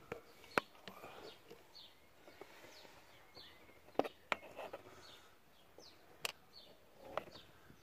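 Faint bird chirps, short falling notes every second or so, with a handful of sharp clicks from tools and parts handled at the timing belt tensioner.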